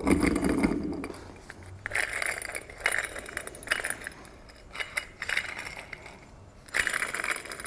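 The old belt tensioner pulley from a 2017 Honda Accord 2.4L, spun and turned by hand, its worn bearing grinding in a rough stretch and then in several short spurts about a second apart, with clinks of the metal tensioner arm. The worn bearing is the cause of the belt noise.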